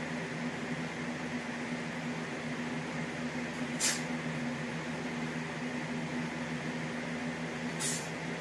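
Two short swishes, one about four seconds in and one near the end, as a leg in loose sweatpants whips through low roundhouse kicks. A steady low hum runs underneath.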